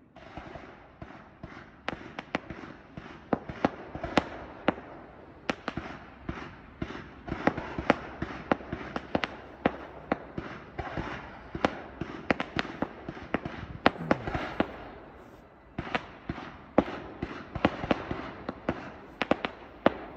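Aerial fireworks going off in a dense barrage: a rapid string of sharp bangs and crackles, several a second. It starts abruptly and has a brief lull about fifteen seconds in.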